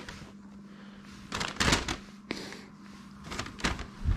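Rustling and handling noise as mushrooms are picked from a stall display by hand, in short bursts about one and a half seconds in and again near the end, with a sharp click a little after two seconds, over a faint low steady hum.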